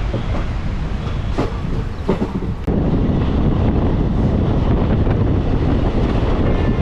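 The West Coast Express passenger train running along the rails, heard from aboard with wind on the microphone. A few sharp knocks come in the first couple of seconds, then the sound jumps abruptly to a louder, steadier rumble about two and a half seconds in.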